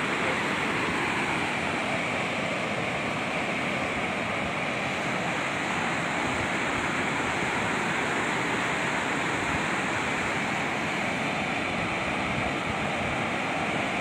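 Muddy floodwater of a hill torrent rushing over and past a concrete causeway bridge: a steady, even rush of water.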